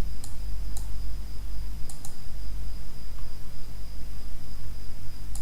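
Steady low electrical hum with a faint thin high whine, over which a computer mouse clicks a few scattered times, twice in quick succession about two seconds in.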